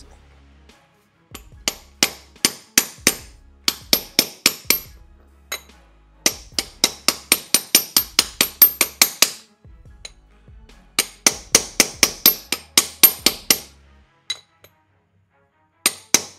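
Hammer tapping on a socket to drive a new bearing into a belt tensioner pulley: quick runs of sharp metallic taps with a ringing edge, about four a second, in three bursts with short pauses between and a few more taps near the end.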